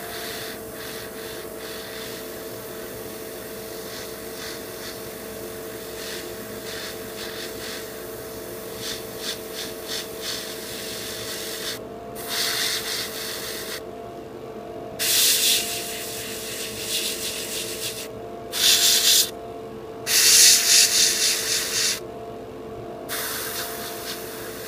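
Airbrush hissing in short, stop-start bursts as the trigger is worked, laying down a fine, low-flow pre-shade coat. The bursts are louder in the second half, over the steady hum of the running spray booth and compressor.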